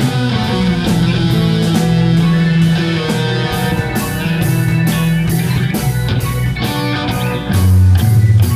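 Live rock band playing an instrumental passage: electric guitars and bass guitar over a drum kit with steady cymbal hits. A louder low note comes in near the end.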